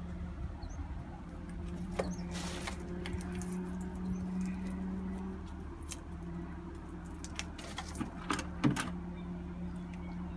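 Bundle of dry aerial roots being gripped and worked by hand: scattered clicks, knocks and rustles as the stiff stems tap and rub together, the sharpest knock near the end. A steady low hum runs underneath.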